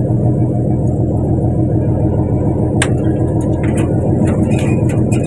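A fishing boat's engine running with a steady, even drone. Sharp clicks and knocks start about three seconds in.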